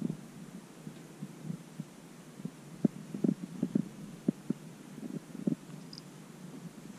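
Domestic cat purring close by: a low, throbbing rumble, with a run of louder low thumps in the middle.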